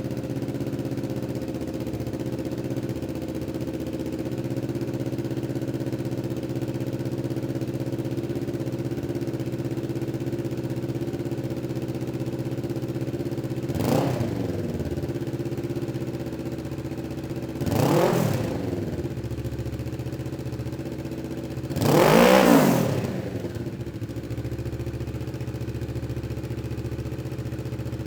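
2023 Kawasaki Ninja 650's parallel-twin engine idling steadily through its exhaust, blipped three times about four seconds apart. The third rev climbs highest and is the loudest.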